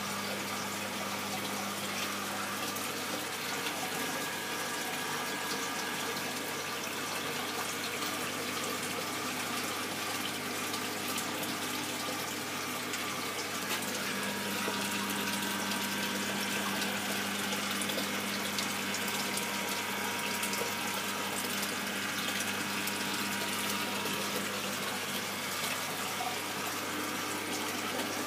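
Reef aquarium water circulating: a steady rush and trickle of water through the tanks' pumps and overflows, over a low, even pump hum.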